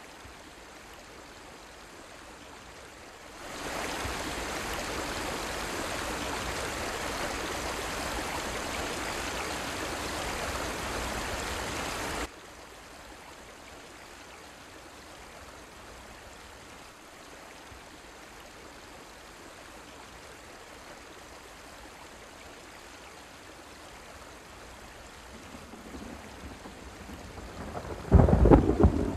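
Steady rain that comes in a few seconds in and cuts off suddenly about twelve seconds in, leaving a quieter hiss. A loud rumble of thunder starts near the end.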